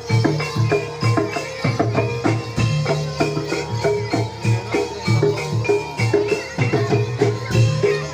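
Traditional Javanese barongan accompaniment music: drums and struck metal percussion playing a fast, steady rhythm with ringing pitched tones.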